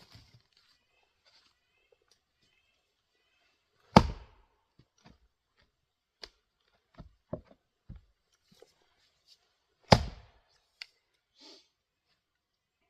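A 3.5 lb Craftsman single bit axe striking firewood twice, two sharp chopping blows about four and ten seconds in, with a few lighter knocks of wood between them.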